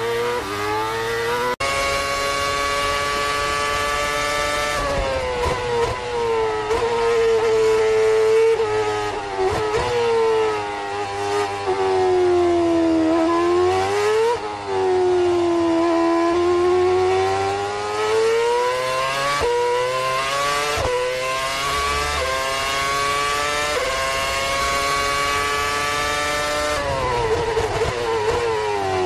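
Formula One 2.4-litre V8 engine at high revs, its pitch climbing steadily through the gears and swooping down in quick downshifts, several times over.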